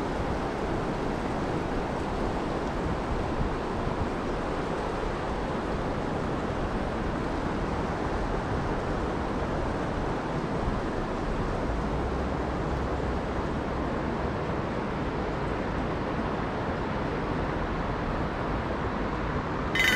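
Steady rush of river water flowing over rocks, an even noise without pitch. A short clatter comes right at the end.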